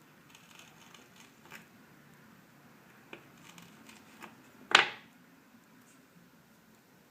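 Small handling sounds of tools and wires on a workbench: scattered light ticks and rustles, with one sharp click a little under five seconds in.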